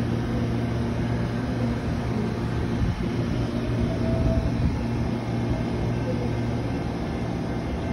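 Amtrak passenger cars rolling past on the track, a steady low rumble with a constant low hum.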